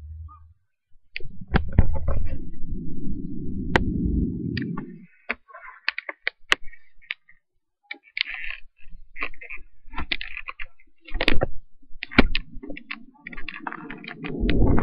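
Thunder rumbling low, from about a second in for some four seconds and again near the end, with many sharp clicks and taps scattered throughout.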